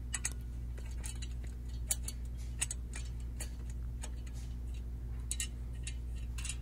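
Faint, irregular small metal clicks as a hex nut and washer are turned by hand onto a bolt in a steel bench support, the nut being worked on by the fingers before tightening with a tool.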